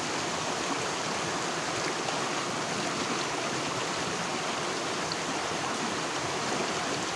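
Steady rushing of flowing stream water, an even, unbroken wash of noise.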